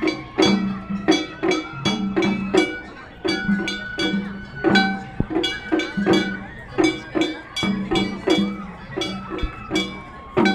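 Japanese festival hayashi played on a float: taiko drums and a ringing metal hand gong struck in a quick, steady beat, about three strokes a second, with a bamboo flute holding high notes.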